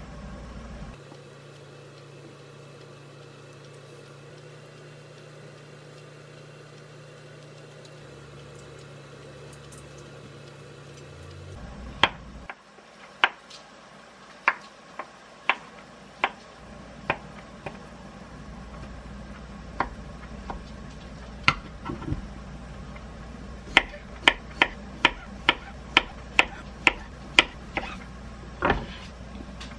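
A low steady hum for about the first twelve seconds. Then a kitchen knife knocks on a wooden cutting board as it cuts soft cooked sweet potato and then cherry tomatoes: single cuts at first, then a quicker run of about three cuts a second near the end.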